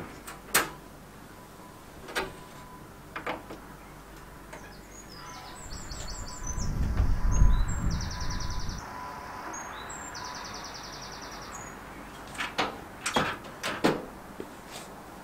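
Rear engine lid of a Renault 4CV being handled: sharp clicks and knocks as it is opened, and a clatter of clicks near the end as it is shut and latched. A low rumble is the loudest sound about halfway through, while birdsong twitters in quick, repeated trills.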